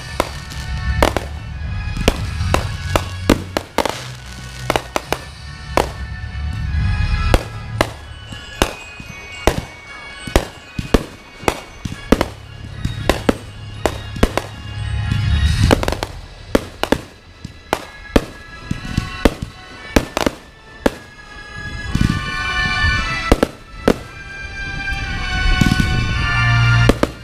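Fireworks show set to music: dozens of sharp firework bangs and reports going off in quick succession over loud music with a heavy bass, the shots timed to the beat of the songs.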